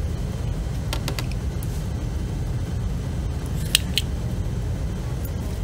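A few light clicks and taps of small parts being handled, a pair about a second in and a sharper pair near four seconds, over a steady low rumble.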